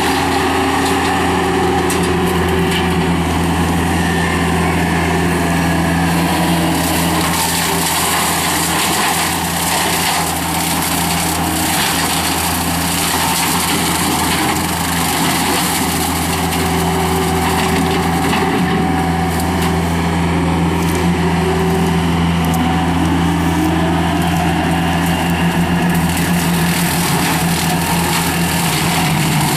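Skid steer loader's diesel engine running steadily under load, driving a 60-inch brush cutter mower, with a dense mechanical din over the engine hum.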